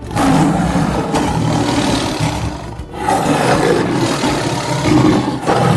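Lion roaring: two long, loud, rough roars, the second starting about three seconds in.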